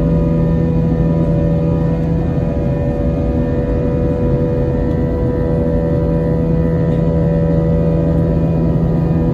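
Jet airliner heard from inside the passenger cabin while climbing after takeoff: a steady engine drone and rush of air, with several steady humming tones over it.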